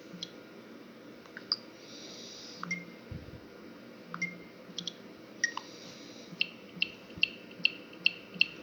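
A Samsung U900 Soul ringtone playing through the phone's speaker: scattered short electronic blips and clicks, then from about six seconds in a quick regular run of bright pips, about two and a half a second.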